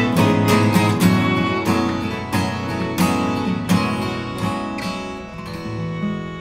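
Two acoustic guitars strumming chords with a violin playing along. The strumming stops about five seconds in, and the last chord rings out and fades.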